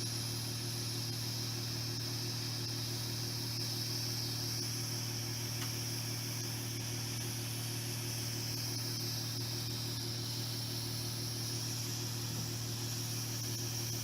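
Electric hot-knife rope cutter, its blade removed, giving a steady low buzz with a hiss over it while it heats heat-shrink tubing on a battery cable end.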